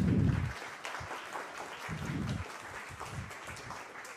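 Audience applauding, loudest at the very start and tapering slightly toward the end.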